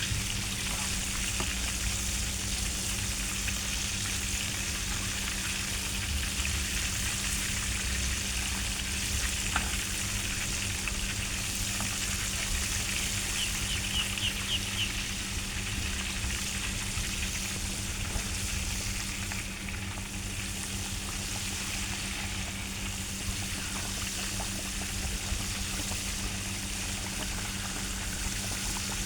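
Chicken deep-frying in hot oil: a steady, even sizzle throughout, with a steady low hum underneath.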